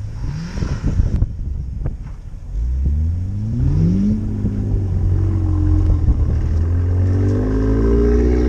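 Car engine accelerating: its pitch climbs steeply from about two and a half seconds in, levels off briefly, then climbs slowly again. Before it, wind buffets the microphone with irregular knocks.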